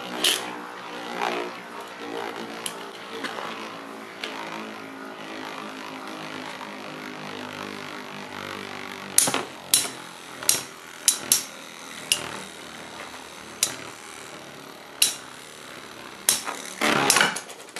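Two metal-wheeled Beyblade spinning tops whirring in a plastic stadium, then clashing with a string of sharp clacks from about nine seconds in. Near the end comes a louder rattling clatter.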